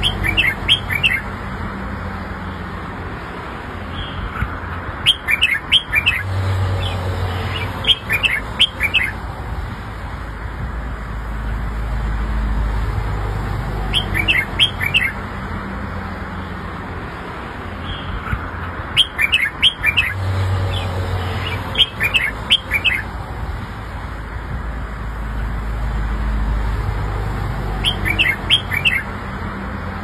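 Red-whiskered bulbul singing in short bright phrases of several quick notes, one phrase every few seconds, over a steady low background rumble.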